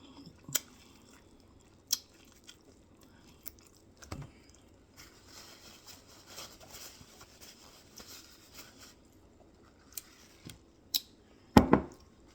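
A person eating close to the microphone: chewing with scattered sharp crunches and clicks, a softer stretch of chewing in the middle, and a louder crunch with a low thud near the end.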